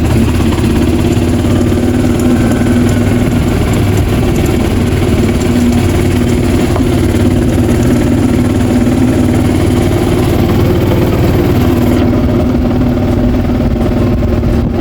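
A car's engine running with a steady drone, heard from inside the cabin.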